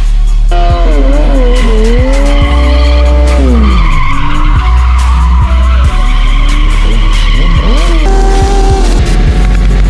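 A car drifting in circles, its engine revving and tyres screeching, laid under background music with a heavy bass beat.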